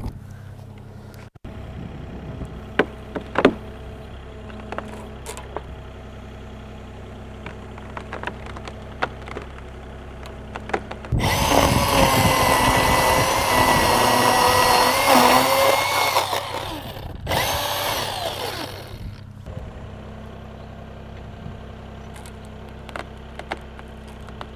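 Cordless battery chainsaw cutting through the base of a standing tree trunk in two runs, one of about five seconds and a shorter one of about two seconds, its whine sagging in pitch as it bogs down in the wood. Under and between the cuts, the steady low hum of the compact excavator's diesel idling, with a couple of sharp knocks about three seconds in.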